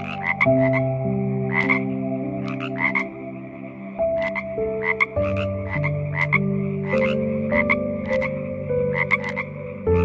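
Frog croaking: short, sharp calls repeated irregularly, often in quick pairs, roughly every half second.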